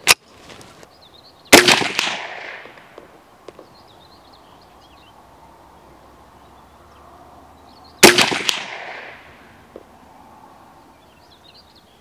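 .22 WMR (Winchester Magnum Rimfire) rifle fired twice, about six and a half seconds apart, each shot a sharp crack with an echo trailing off over about a second. A short sharp click comes just before the first shot.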